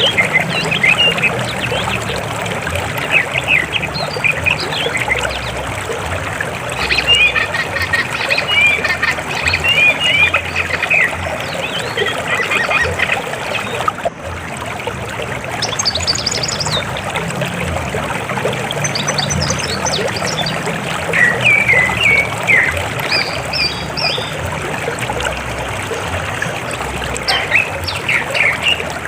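River water flowing steadily, with frequent short bird chirps and calls over it.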